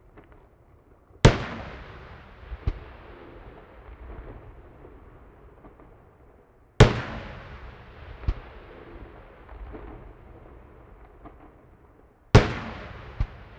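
Aerial firework shells bursting one at a time: three loud bangs about five and a half seconds apart, each trailing off in a long echoing rumble and followed about a second and a half later by a smaller crack.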